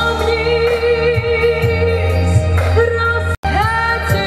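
A woman singing a song over a backing track, holding long notes. The sound cuts out for an instant a little after three seconds in.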